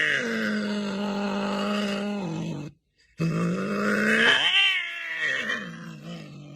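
An animal's long, drawn-out cry held at one pitch, then after a brief break a second cry that rises in pitch and wavers before fading away.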